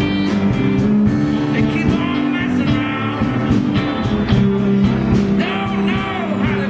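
Live blues band playing: electric guitars, bass, keyboards and a steady drum beat, with bending lead notes near the end.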